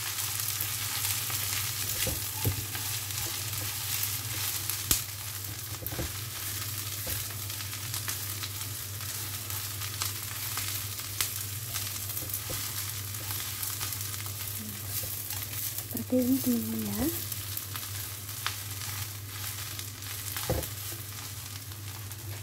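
Boiled papaya leaves with chili, shallot and garlic sizzling in a frying pan as they are stir-fried, with the spatula knocking and scraping the pan now and then. A steady low hum runs underneath.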